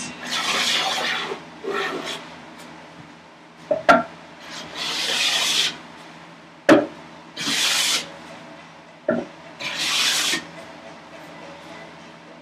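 Metal bench plane cutting shavings from a maple board in five long strokes, each a hiss lasting about a second. Three sharp knocks come between the strokes, each just before the next one begins.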